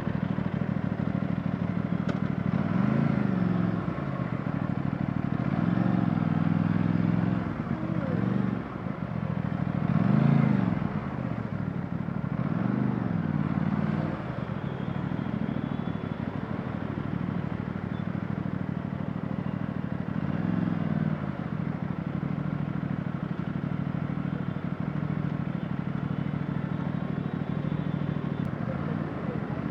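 2024 Aprilia RS457's 457cc parallel-twin engine through its stock exhaust, heard onboard while riding: it revs up and drops back several times, with steadier running in between.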